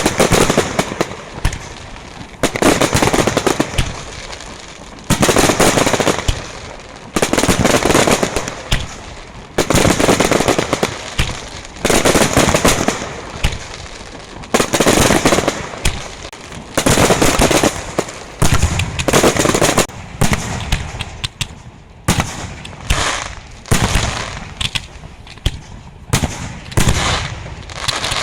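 Pirocilento aerial fireworks display: volleys of rapid crackling bangs, each about a second long, coming about every two seconds. In the last third they thin into shorter, separate bangs about once a second.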